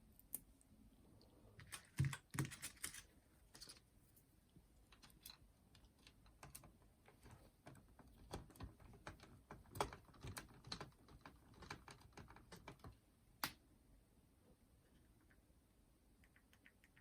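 Light, irregular clicks and taps of small tools and parts being handled on the opened cassette deck of a JVC M70 boombox, busiest about two seconds in and stopping near the end.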